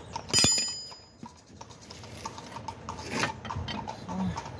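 Metal hand tools and car suspension parts being handled: a loud metallic clank about half a second in that rings briefly, followed by scattered light clicks and a short scrape.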